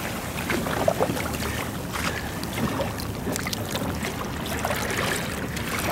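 Water lapping and sloshing against a plastic kayak hull and a surfaced whale's back, with scattered light knocks.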